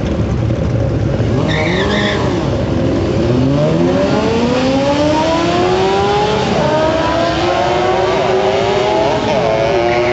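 Supercharged Hyundai Tiburon and a sport motorcycle launching from the drag-strip start line and accelerating hard, engine pitch climbing over several seconds and wavering near the end.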